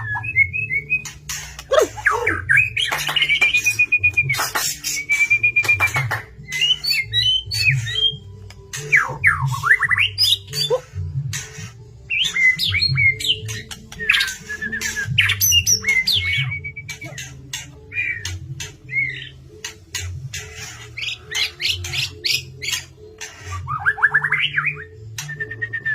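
White-rumped shama (murai batu) singing vigorously: clear whistled phrases that rise, fall and hold, broken up by sharp clicks and harsh squawky calls.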